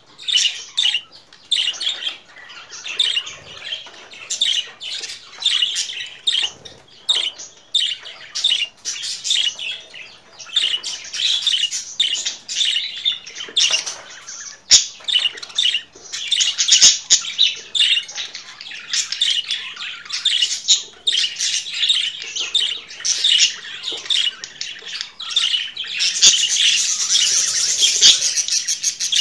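Budgerigars chattering and warbling: a steady stream of quick, high chirps and squawks, getting denser and louder in the last few seconds.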